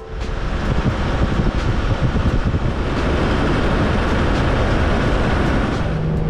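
Four-wheel drive driving along a sand beach, heard from a camera mounted on the vehicle's body: a loud, steady rush of wind and road noise.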